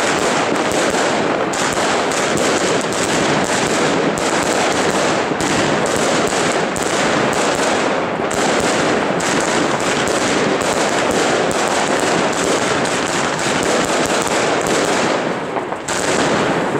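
Zena Gold Box 70-shot firework cake firing in a dense, continuous barrage of shots and bursts overlapping one another, with a brief lull near the end before it picks up again.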